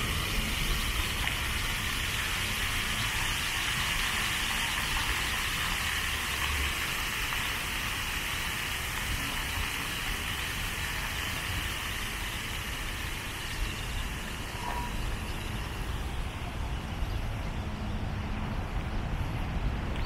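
Outdoor city ambience on foot: a steady low rumble, with a steady high-pitched hiss that fades out near the end.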